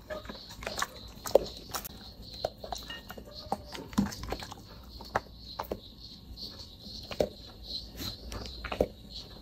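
A dog eating noodles: irregular chewing and lip-smacking, a scatter of short sharp clicks and smacks.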